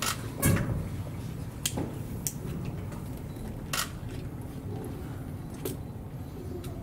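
Six or so sharp, short clicks at uneven intervals over a low, steady background rumble, the strongest about half a second in.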